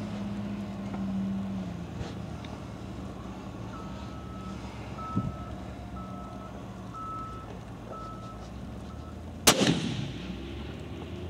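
A single rifle shot about nine and a half seconds in, with a trailing echo. Before it, a faint row of short, evenly spaced beeps, and at the start a low steady hum that fades out.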